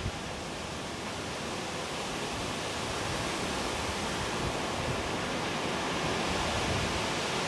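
Steady, even rushing noise outdoors, slowly getting louder, with no distinct events in it.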